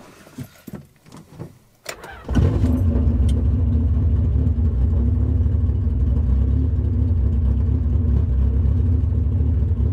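Honda B20 VTEC four-cylinder engine in a Civic catching on a jump-started second attempt after a few faint clicks. It fires about two seconds in and then runs steadily and very loud at a fast idle.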